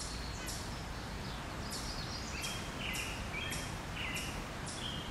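Woodland ambience: small birds chirping over a steady background hiss, with a high hissing pulse repeating about twice a second.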